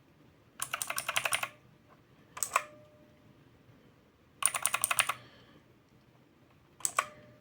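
Mechanical keyboard with clicky Outemu Blue switches, keys pressed in quick bursts: two runs of rapid clicks about a second long and two brief pairs of clicks, with pauses between.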